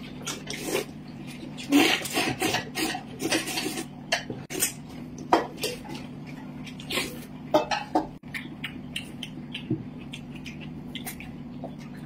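Eating at a table: chopsticks clicking and scraping on ceramic bowls and plates, with noodles slurped, in irregular short bursts over a steady low hum.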